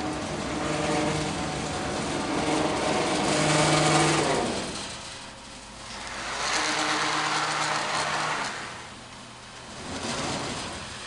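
Autometrix X5 cutting table's gantry drive whining as the gantry is jogged along the table, in runs that start and stop: one of about four seconds, another of about two seconds, and a short one near the end.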